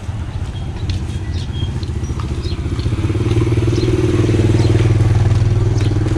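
Motorcycle engine running steadily, getting louder about three seconds in, with scattered small clicks and clatter over it.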